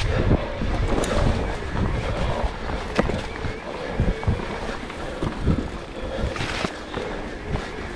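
Mountain bike ridden along a trail: wind buffeting the microphone, tyres rumbling over the ground, and the bike knocking and rattling over bumps every second or two.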